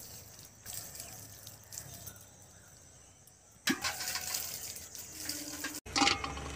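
Water poured by hand from a small metal cup, splashing onto loose garden soil; about halfway through it grows louder with sloshing and clinks as the cup is dipped into an aluminium pot of water.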